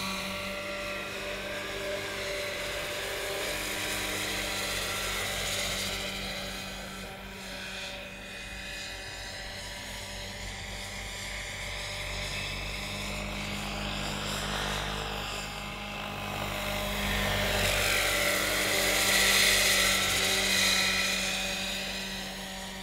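Large electric Vario SA-341/342 Gazelle scale model helicopter in flight: the steady whine of its electric drive and the whir of its main rotor, swelling to its loudest as it passes close about three quarters of the way through, then fading.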